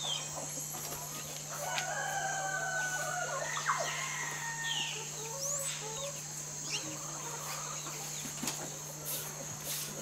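A rooster crows once, about two seconds in, among scattered chicken calls, over a steady high-pitched drone.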